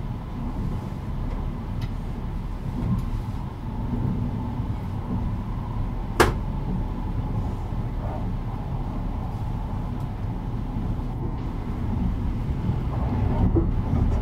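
Kintetsu 80000 series 'Hinotori' electric train running, heard from inside the car: a steady low rumble of wheels and running gear, with one sharp knock about six seconds in.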